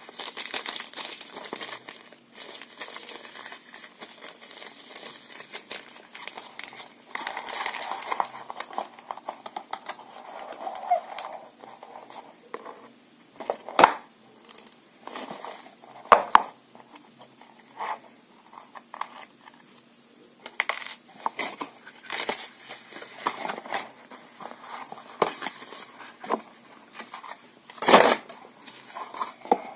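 Handling noise: rustling and crinkling, then scattered sharp clicks and knocks as objects are picked up and set down, with the loudest knock near the end.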